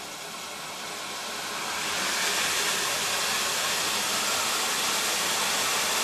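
Water rushing through a brass valve into a pump running backwards as a micro-hydro turbine, a steady hiss that swells over the first two seconds as the valve opens and the turbine comes up to speed, then holds steady.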